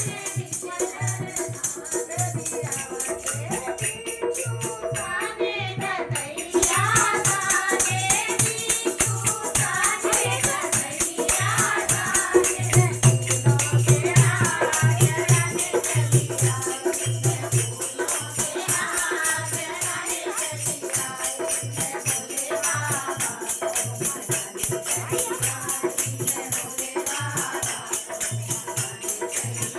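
Hindi devotional song to Shiva (a bhajan): a singing voice over a steady bass beat and a constant shaker-like rattle. The music gets louder about six seconds in.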